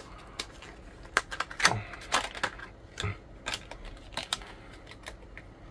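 Stiff clear plastic blister pack and its cardboard backing card being handled and opened by hand: irregular sharp crackles and clicks, the loudest about a second and a half in.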